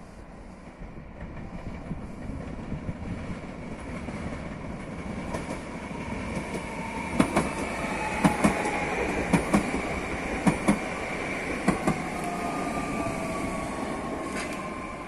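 Newag Impuls 31WE electric multiple unit passing close as it slows into the station: running noise builds up, then its wheels knock over rail joints in pairs about once a second. A steady high whine runs under it, with a second whine falling in pitch as the train slows.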